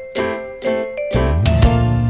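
Background music: a light, tinkling melody of separate notes, about two a second, with a low bass part coming in about halfway through.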